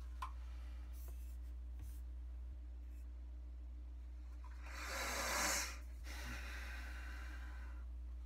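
A man's single audible breath out, lasting about a second, about five seconds in, over a steady low electrical hum and room tone.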